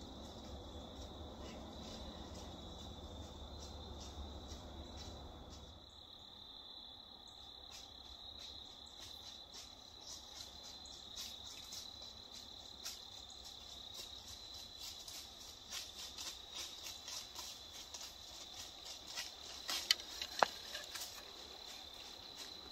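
Crickets trilling steadily. Under them, a low rumble stops about six seconds in, and scattered faint crackles and ticks grow busier later on, with two sharper clicks about twenty seconds in.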